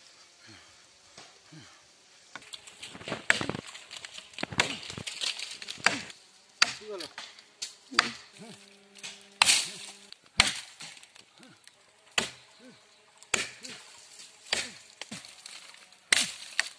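Machete chopping into a tree trunk: sharp wooden strikes at a steady rhythm, a little over one a second, starting about three seconds in.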